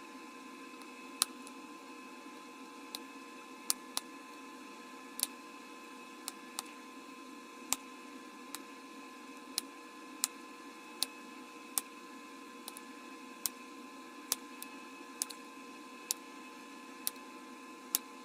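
Bottle glass being knapped: sharp little clicks as flakes snap off, about one a second at an uneven pace. A steady low hum runs beneath.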